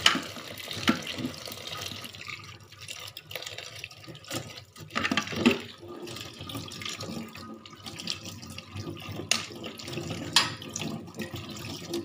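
Kitchen tap running into a stainless steel sink as corn kernels are rinsed by hand, first in a wire strainer and then in a bowl filling under the stream. Several sharp knocks and clatters come from the strainer and bowl being handled.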